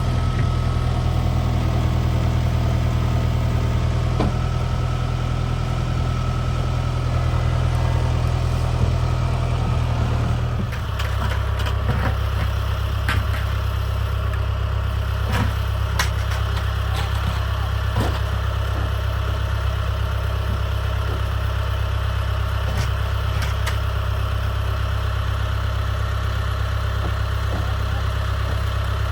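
An engine running steadily at a low hum; about eleven seconds in its note shifts lower and stays there, with scattered light clicks and knocks on top.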